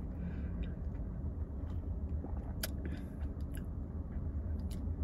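Sipping an iced drink through a straw, with mouth and swallowing sounds and a few small clicks, over a steady low rumble.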